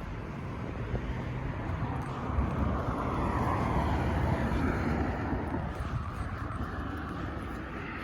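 A passing vehicle's rushing rumble, growing louder about two and a half seconds in and easing off near the end.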